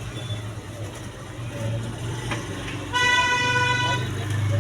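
A vehicle horn sounds once, a single pitched blast lasting about a second, about three seconds in, over a steady low electrical hum. A small click comes just before the horn.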